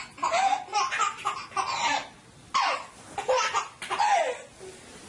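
A baby laughing hard in a run of short bursts, each falling in pitch.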